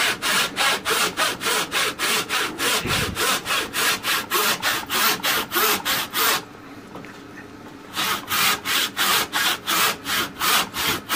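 Hand sawing a rip cut down the cheek of a tenon with a long crosscut miter box saw, at about three strokes a second. The sawing stops for about a second and a half a little past the middle, then starts again at the same pace.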